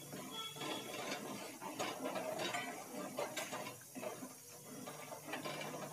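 Spoon scraping and clinking irregularly against the inside of a metal pot while semolina is stirred into boiling water to make upma.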